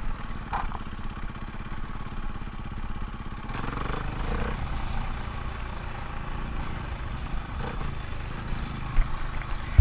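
Dirt bike engine running steadily under the rider, heard from a helmet camera, getting a little louder about three and a half seconds in, with a thump near the end.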